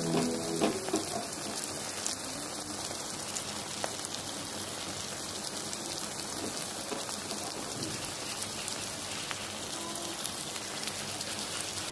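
Hot oil sizzling steadily in a wok as a turmeric-spiced paste fries, with a few faint clicks of a metal spoon against the pan.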